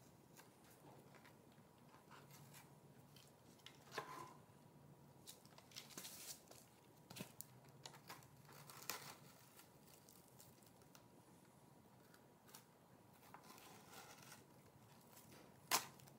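Faint peeling and crinkling of painter's tape being pulled off a clear polycarbonate RC truck body, with a few light clicks and a sharp tap near the end.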